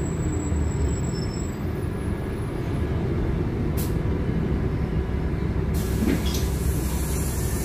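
Cabin of a LiAZ 5292.71 city bus under way: a steady low drone of engine and road noise. There is one short click about four seconds in, and a hiss comes in about six seconds in.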